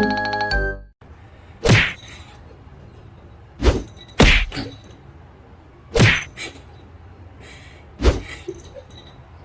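A short musical jingle ends about a second in, followed by five sharp knocks or thumps spaced irregularly over a low steady background hum, two of them close together around the middle.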